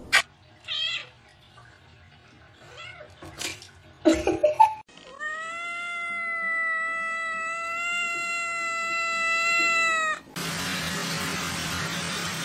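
A black-and-white house cat giving one long, drawn-out meow at a steady pitch for about five seconds, cut off sharply. Before it come a few short knocks and thumps, the loudest about four seconds in.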